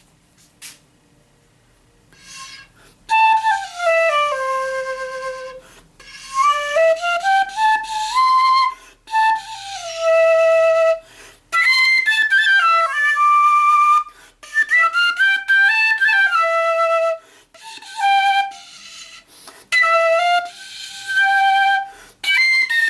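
Quena pitched in B playing a melody in short phrases with brief pauses, the notes sliding up and down between pitches. The playing starts about three seconds in.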